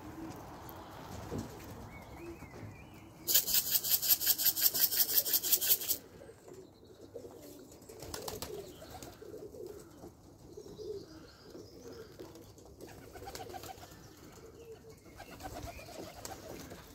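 Domestic pigeons cooing softly. A few seconds in, a loud rhythmic rattle of about five beats a second cuts across them for nearly three seconds.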